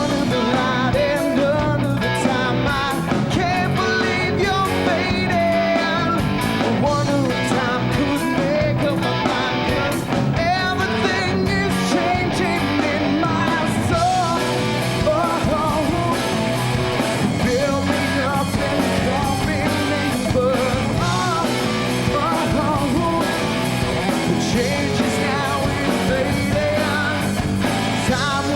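Rock band playing a song: a sung lead vocal over guitars and drums, steady and full throughout.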